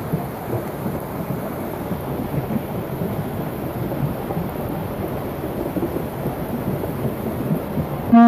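Steady, even rushing noise of a heavy rainstorm. Right at the end, music cuts in suddenly with a loud held note.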